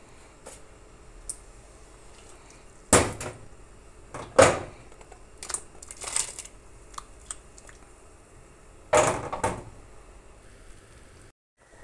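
Chopped peaches tipped into a metal pot of water, with three loud knocks against the pot and lighter clatter between them. The knocks come about three seconds in, again a second and a half later, and once more near the end.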